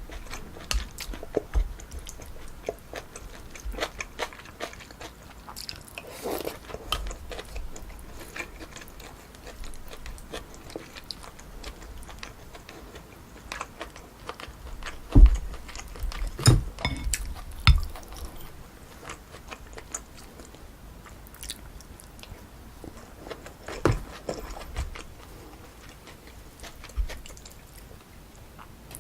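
Close-miked mouth sounds of eating pork kimchi stew with rice: steady chewing with many small wet clicks and smacks. A few louder thumps come about halfway through and again later.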